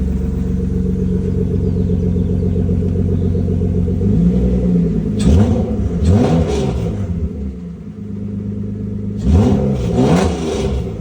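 BMW E36 engine idling steadily, then revved in two bursts: the first about four seconds in, the second near the end. Each burst rises and falls in pitch.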